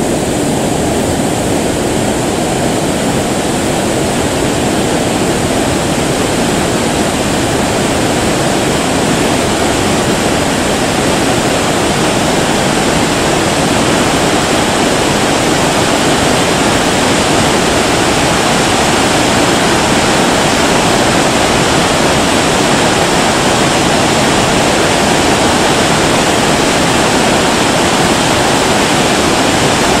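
Loud, steady rush of white water from the rapids and small cascades in the boulder-strewn river just below Naena Falls, with the falls themselves upstream.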